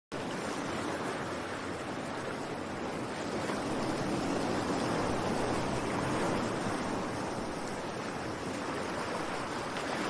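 Ocean waves breaking and washing over a rocky shore: a steady rush of surf that swells a little in the middle.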